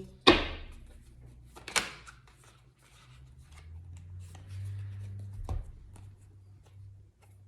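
Tarot cards being handled and shuffled. There is a sharp card slap about a quarter second in and another snap near two seconds, then faint ticking of cards and a low thump about five and a half seconds in.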